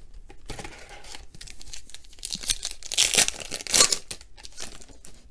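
Foil wrapper of a Panini Donruss Optic baseball card pack crinkling as it is pulled from the box and torn open, the tearing loudest a little past halfway through, with a sharp crackle near the end.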